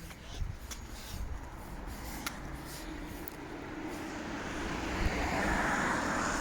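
Road traffic: a car passing on the street, growing steadily louder over the last couple of seconds.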